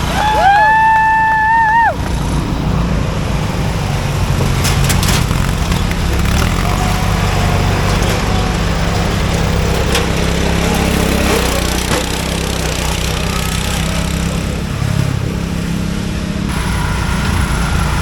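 Racing lawn mowers' small engines running with a steady rumble. At the very start a loud, flat, held high tone with overtones lasts about two seconds and stands out above the engines.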